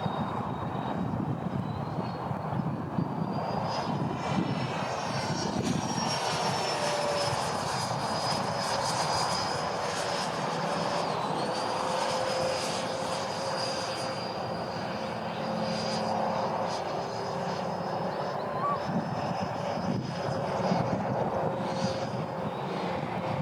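Freewing MiG-29 model jet's twin 80 mm electric ducted fans whining in flight. The high whine climbs in pitch over the first few seconds, then holds, dipping briefly about halfway through. Wind rumbles on the microphone underneath.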